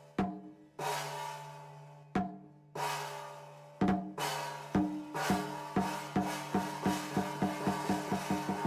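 Percussion: struck strokes with a ringing, gong-like tone, a few widely spaced hits that then speed up into a fast, even, accelerating beat.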